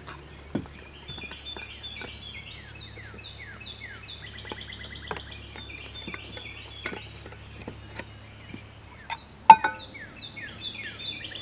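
Songbirds singing in a steady run of short descending chirps and trills, over a low steady background hum. Scattered small clicks of handled metal gear, with one sharp metallic clink about nine and a half seconds in.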